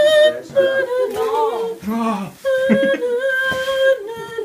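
A person singing a wordless tune in a high voice, humming-like, with long held notes that waver and break every second or so.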